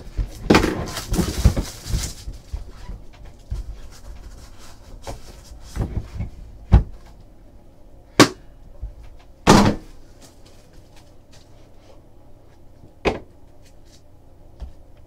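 A trading card box's packaging being cut and torn open, a rustling in the first two seconds, followed by four sharp knocks and clacks as the box and its hard inner case are handled and set down on the table.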